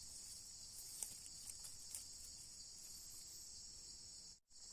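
Faint, steady, high-pitched chorus of insects, crickets or cicadas shrilling without a break, with a few soft ticks. The sound cuts out completely for a moment near the end.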